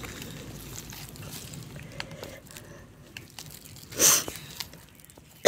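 Crunching and rustling of loose soil and hairy roots as a hand grips and works at freshly dug tubers, with scattered small cracks and one louder crunching scrape about four seconds in.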